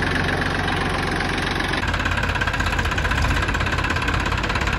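Massey Ferguson 241 DI tractor's three-cylinder diesel engine idling steadily, just after being started.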